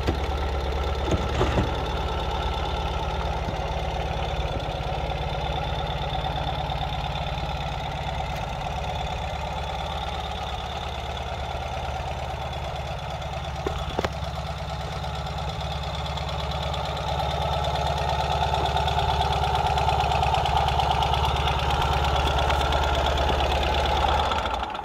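Ural Gear Up's air-cooled flat-twin (boxer) engine idling steadily, getting somewhat louder about two-thirds of the way through, then cutting off abruptly near the end.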